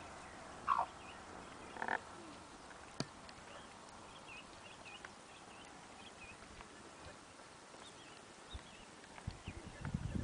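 Two-day-old ducklings peeping softly: a run of short, faint, high peeps, with two louder calls in the first two seconds, a single click about three seconds in, and a few low knocks near the end.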